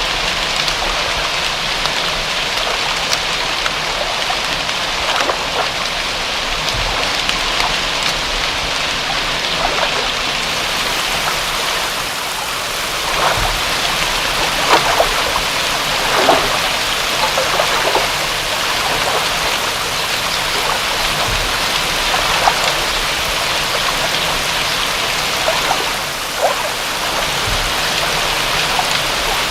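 Steady rain falling, a dense even hiss with scattered louder individual drops splashing close by.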